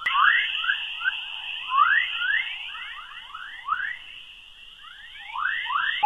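Earth's electromagnetic 'chorus' waves from the magnetosphere, converted to sound: many short rising chirps, several a second and thickening near the end, over a steady high-pitched hiss.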